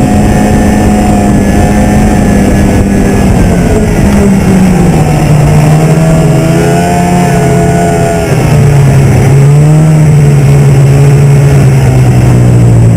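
'02 Arctic Cat Z440 Sno Pro snowmobile's two-stroke twin engine running under way, heard from the rider's seat. Its note drops about four to five seconds in as the sled slows, then holds at the lower pitch.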